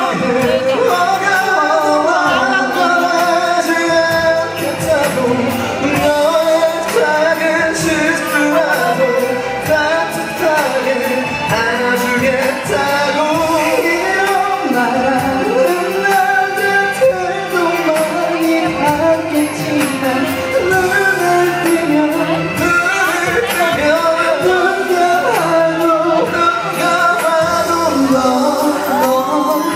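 Two male singers performing a pop song live into microphones, with instrumental backing, amplified through the hall's sound system.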